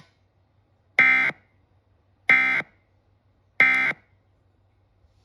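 Emergency Alert System end-of-message data tones: three short, identical buzzy bursts of digital data, about a second and a quarter apart, marking the end of the broadcast alert.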